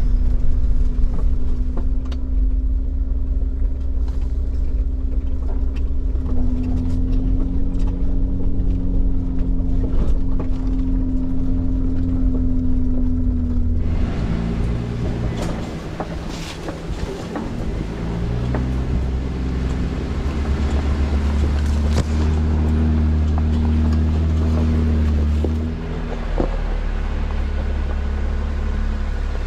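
A Jeep's engine and drivetrain running at low speed over a rough, narrow dirt trail, heard from inside the cab as a steady low hum and rumble. About halfway through, the sound turns brighter, with scattered clicks and knocks over the rumble.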